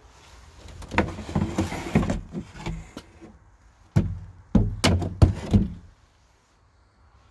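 Discarded household items, among them a large wooden-framed picture, being shifted in a pile. About two seconds of scraping and rustling come first, then several sharp knocks and thumps of wood against other objects.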